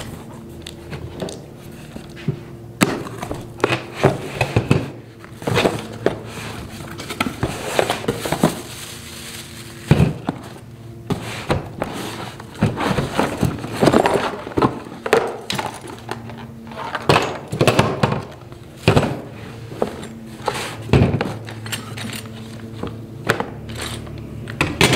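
Cardboard box being opened and unpacked by hand: flaps and cardboard rustling, plastic wrapping crinkling, and irregular knocks as tool parts are set down on a table.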